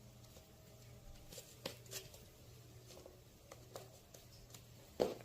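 Faint handling noises from taping wood veneer panels together: scattered light crackles and taps of tape and veneer under the hands, with a sharper tap near the end.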